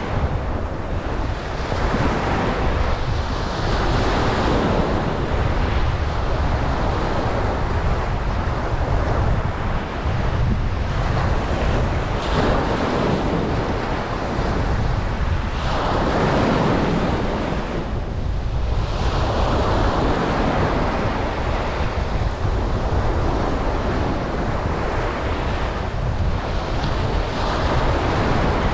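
Ocean waves breaking and washing up on a beach, the surf swelling and fading every few seconds, with wind rumbling on the microphone.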